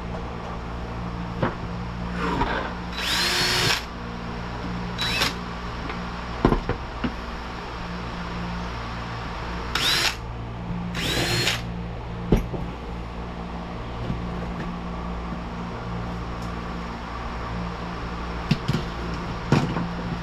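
Electric drill run in short bursts, opening up the vent-window frame's holes a little to take number 6 screws: two main runs of about a second and a half each and a short blip between them. A few light knocks and a steady low hum sit underneath.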